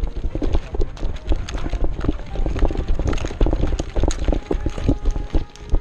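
A player running, with quick footfalls and gear jostling against a body-worn camera microphone as a run of dull thumps and clicks.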